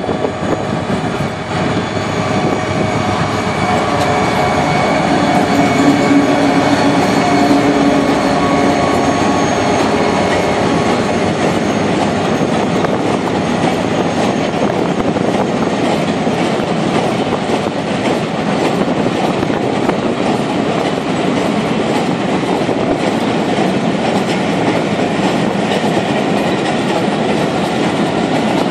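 EMD GMU30 diesel locomotive working hard under load as it draws near and passes, its engine loudest about six seconds in. After that comes the steady clickety-clack of a long train of loaded oil tank wagons rolling past.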